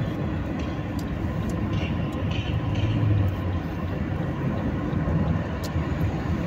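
Steady low road and engine rumble heard inside the cabin of a moving Suzuki car.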